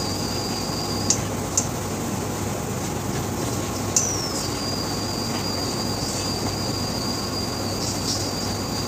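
Induction hob whining at a steady high pitch as it heats a frying pan. The whine cuts out about a second in and comes back around four seconds with a short falling sweep. A soft hiss from the pan runs underneath, with a few light clicks of the spatula against the pan.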